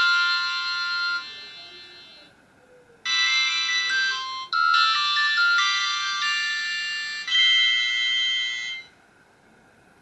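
An Alcatel 2053D mobile phone's speaker playing a Samsung SCH-A610 polyphonic MIDI ringtone through the phone's basic MIDI synthesizer, thin and tinny with no bass. The tune fades out about two seconds in and starts again about a second later. It stops about nine seconds in.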